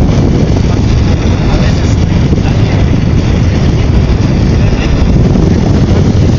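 Mototaxi's small 200 cc engine running steadily under way, with heavy wind rumble on the microphone.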